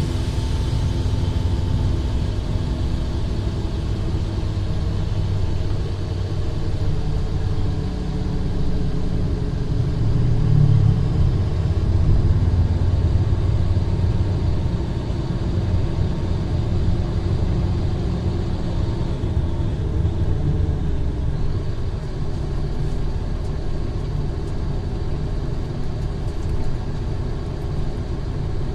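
Mercedes-Benz O500R bus's rear-mounted BlueTec 5 diesel engine running steadily with a deep rumble. It grows louder for a few seconds around the middle.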